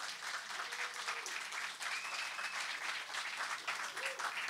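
Audience applauding: many hands clapping at once in a dense, even patter.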